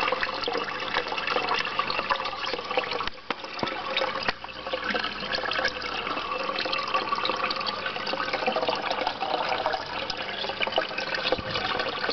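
Water gushing and bubbling into an aquaponic goldfish tank from a pipe outlet: a steady rush with many small clicks.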